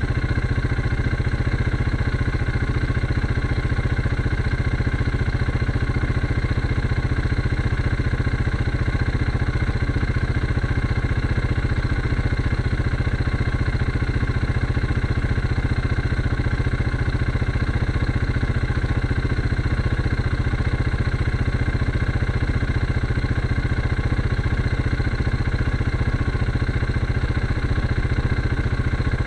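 Quad (ATV) engine idling at a steady speed, with no change in pitch.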